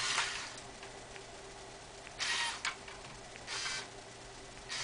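RoboRaptor robot dinosaur's neck gear motor whirring in short bursts, three times about a second apart, turning the neck and head.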